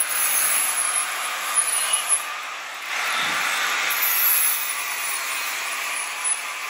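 Steady, noisy workshop background, with a few light knocks between about one and a half and two seconds in.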